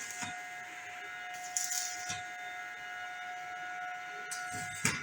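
Electric arc welding with an inverter welder: a hissing crackle from the arc comes in bursts, about one and a half seconds in and again near the end, over a steady high whine.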